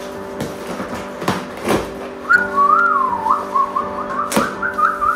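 A cardboard box being opened, a knife slitting packing tape and the flaps pulled apart, with a few sharp rips and knocks. From about two seconds in, a whistled tune wavers up and down for about three seconds, the loudest sound, over steady background music.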